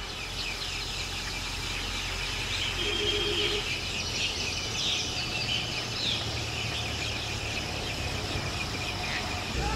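Forest ambience: many birds chirping and insects calling in a dense, continuous chorus, with one brief held call about three seconds in, over a steady low hum.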